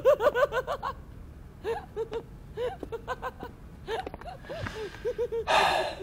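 A young man giggling in short repeated bursts of suppressed laughter, with a loud breathy exhale near the end.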